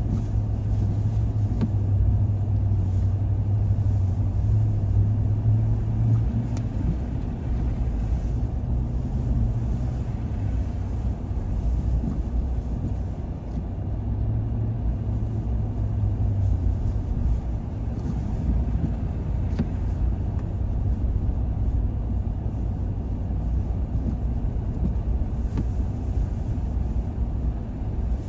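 A car driving on the road: steady engine and tyre rumble. A deep hum is strong for the first six seconds or so, comes back briefly around the middle, then fades.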